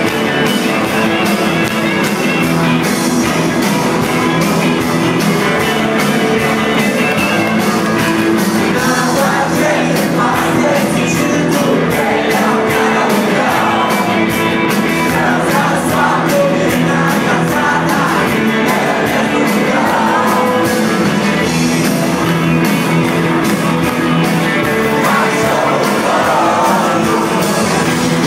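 Rock band playing live and loud: electric guitars and drums keeping a steady beat. A voice sings over the band from about nine seconds in. The band is heard from among the audience.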